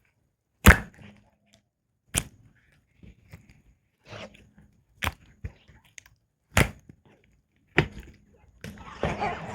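Glossy slime being pressed, letting out a series of sharp bubble pops every second or two, the first the loudest, then a stretch of wet crackling near the end.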